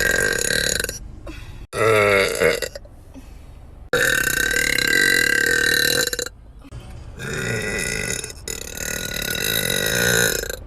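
A person's long, loud burps, four or five in a row, each held for one to three seconds at a steady pitch. A shorter, lower, wavering one comes about two seconds in.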